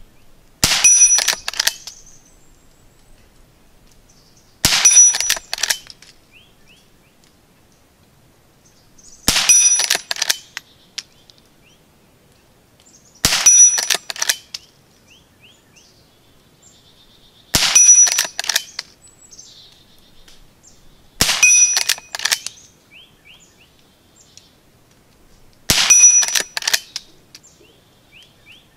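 Seven shots from a Henry Frontier lever-action rimfire rifle, about four seconds apart, each followed at once by the ring of a 6-inch AR500 steel gong being hit.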